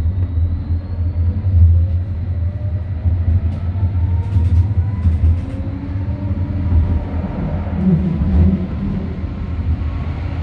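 M8D Stadtbahn light-rail car heard from inside, pulling away and gaining speed: a steady low rumble of wheels on rails with the traction drive's whine rising in pitch. A few brief clicks come about halfway through.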